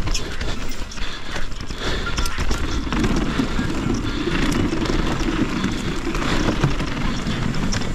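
A 170mm enduro mountain bike riding down singletrack: tyres rolling over dirt and rocks with a steady run of clicks and rattles from the chain and frame, mixed with wind noise on the helmet camera's microphone.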